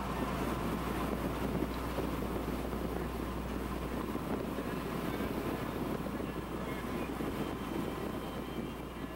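Steady engine and road noise heard from inside a moving van, with some wind, fading out near the end.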